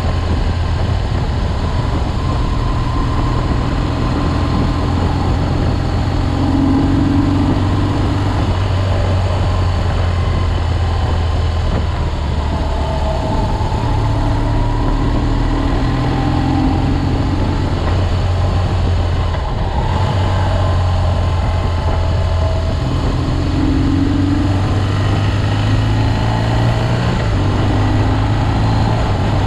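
BMW R 1200 GS boxer-twin engine running while riding at road speed, mixed with steady wind and road noise; the engine note shifts in pitch a few times as the throttle changes.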